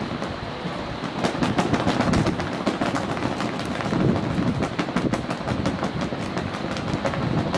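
Passenger jet airliner's engines rumbling on its landing approach, an uneven roar that swells and fades, with crackling through it.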